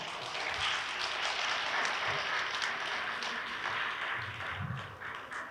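Audience applauding, a steady patter of many hands clapping that thins out near the end.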